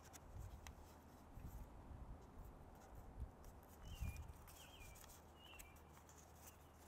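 Faint handling of origami paper being folded: soft rustles, light ticks and a few dull taps against the table. Several short, high, falling chirps of a bird come faintly from the background about four seconds in.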